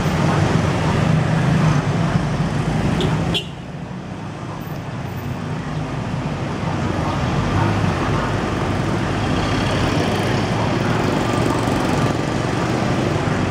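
Street traffic noise from cars and motorbikes passing on the road. The noise drops abruptly about three seconds in, then slowly builds again.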